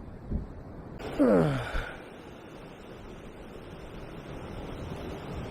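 A short vocal groan about a second in, a man's voice falling steeply in pitch, over faint steady background noise.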